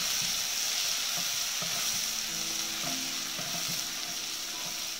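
Ginger-garlic paste frying in oil and ghee, sizzling steadily while it is stirred around the pan with a spatula.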